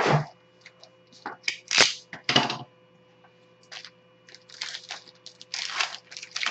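A sharp click at the start, then bursts of crinkling and tearing: a small cardboard trading-card box being opened and the foil wrapper of the pack inside torn open.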